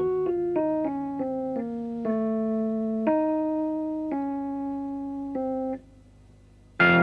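Jazz-fusion band music: a keyboard plays a line of single held notes, one after another. Near the end it stops for about a second, then the full band comes back in loudly.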